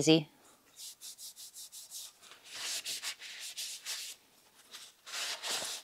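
Paper towel wiping over the slotted metal fan grate of an xTool S1 laser module, a run of quick scrubbing strokes. After a short pause, another burst of wiping comes near the end.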